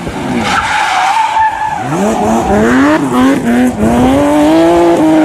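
A car engine accelerating hard at high revs, with a tyre squeal first. The engine pitch climbs, drops about three seconds in as it shifts gear, then climbs again.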